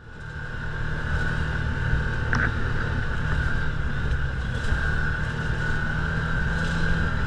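Side-by-side UTV engine running steadily while driving along a trail, heard from on board. A steady high whine sits over the engine sound, and there is a single brief tick about two and a half seconds in.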